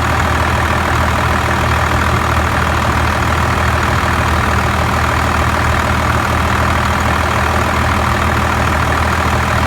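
Truck engine idling steadily with the air conditioning running on full blast.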